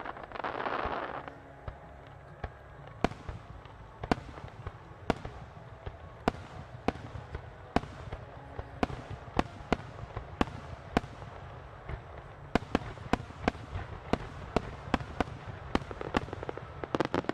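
Fireworks going off in a series of sharp bangs, about one a second at first and coming faster through the second half, with a rushing noise at the start and a dense flurry of crackling right at the end.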